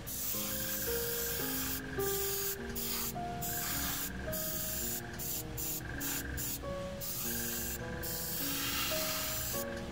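Airbrush hissing as it sprays paint, cut off briefly about ten times as the trigger is let go and pressed again, over background music of slow, held notes.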